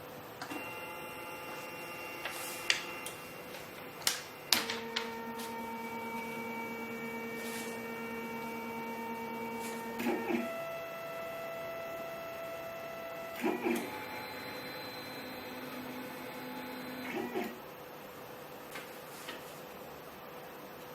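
FlashForge 3D printer's stepper motors running through a series of moves: steady whining tones held for several seconds each, changing pitch with a click at each new move, then stopping near the end.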